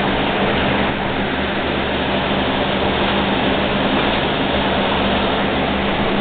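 Steady loud hiss with a low hum beneath it.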